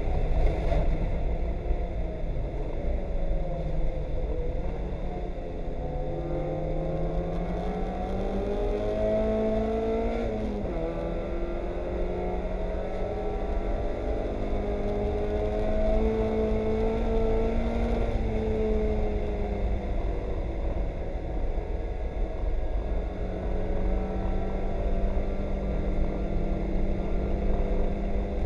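Onboard sound of a Mazda Miata race car's four-cylinder engine under racing load. The revs climb, drop back sharply, climb again, fall away, then hold fairly steady, over a constant rush of road and spray noise in the cabin.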